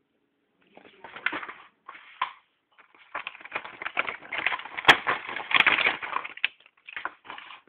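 Plastic toy packaging crinkling and rustling as it is handled and opened, in uneven spurts, with two sharp clicks about halfway through.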